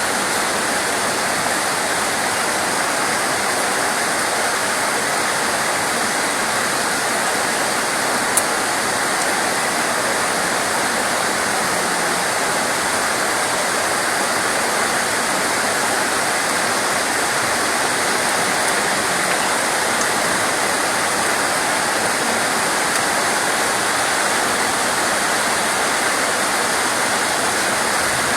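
Steady heavy rain: an even, unbroken rushing hiss with no separate drops standing out, and one faint tick about eight seconds in.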